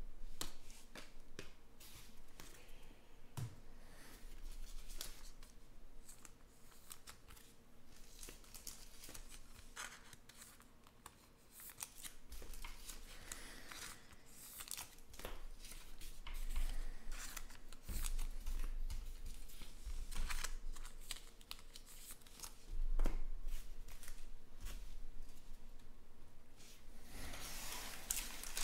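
Trading cards and foil card packs being handled by hand: scattered light clicks and rustles as cards are shuffled and set down, and near the end a foil pack wrapper crinkling as a pack is picked up.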